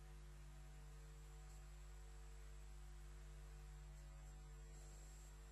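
Near silence: a faint, steady electrical hum with a thin, high whine on the feed.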